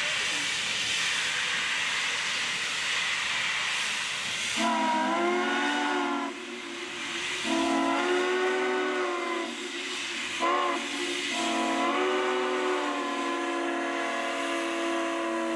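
Southern Pacific 4449, a GS-4 4-8-4 steam locomotive, hissing steam from its cylinder cocks. About four and a half seconds in, its chime whistle sounds four times: long, long, short, long. That is the standard grade-crossing whistle signal, and each blast swoops up in pitch as it opens.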